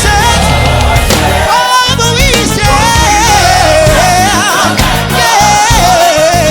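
Live gospel music: singing with a melody line that bends and runs through notes, over a band with a steady bass.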